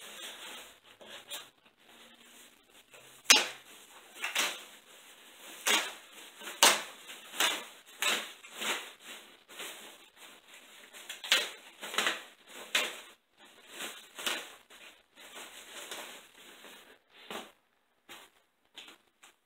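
Thin plastic sheeting wrapped around an electric guitar in its cardboard box being pulled back and unwrapped by hand: irregular crinkling rustles, the loudest about three seconds in.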